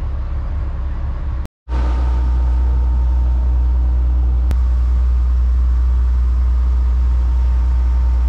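A boat's inboard engine running steadily under way: a deep, even drone with a steady hum above it. The sound drops out for a moment about a second and a half in, then comes back slightly louder.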